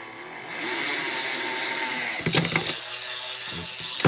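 Old power drill's 540-size brushed motor and metal-geared gearbox running under an RC speed controller, speeding up about half a second in and holding a steady whirr. A few sharp knocks and rattles come partway through and again near the end.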